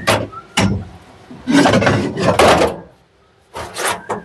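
Sharp knocks and clunks, with a longer scraping rub starting about one and a half seconds in, from car parts being shifted and shoved by hand.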